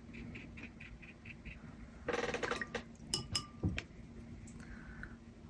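A watercolour brush dabbing lightly on paper in quick, faint taps, about five a second. Then a short clatter and a few sharp clicks with a brief ring, as the brush is knocked against a hard container.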